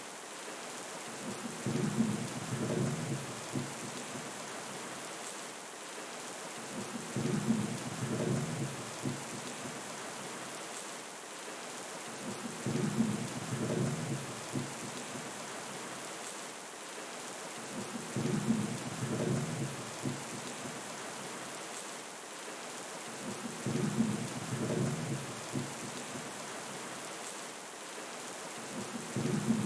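Steady rain with low thunder rumbles that swell and fade at an even pace, about every five and a half seconds.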